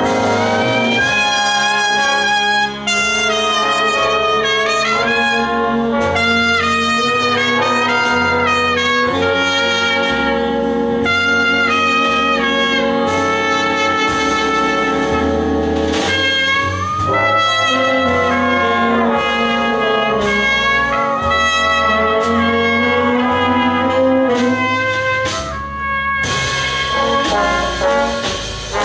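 Live big-band jazz: trumpets, trombones and saxophones play sustained chords and moving lines over the rhythm section. Near the end the band breaks briefly and a cymbal rings.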